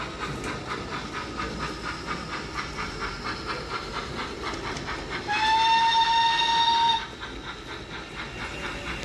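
Sound-fitted model steam locomotive chuffing steadily at about four beats a second, with its whistle blown once for nearly two seconds just past the middle.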